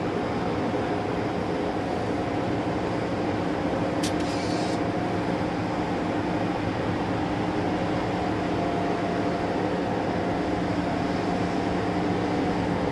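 Towboat's diesel engines running steadily: a constant low hum with a steady drone and no change in speed. A short hiss cuts in about four seconds in.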